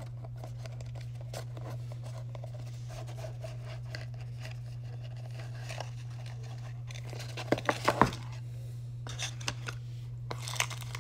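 Cardboard packaging of a smartwatch box being handled: the insert lifted and slid out, with faint scrapes and rustling and a cluster of sharp cardboard knocks about seven and a half seconds in.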